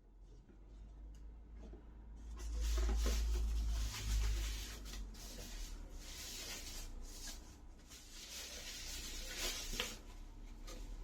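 Rustling and rubbing of packaging being handled, with scratchy crackles and low bumps.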